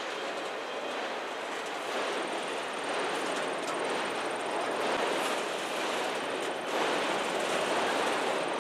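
Freight train's autorack cars rolling past: a steady rumble of wheels on rail that grows slowly louder.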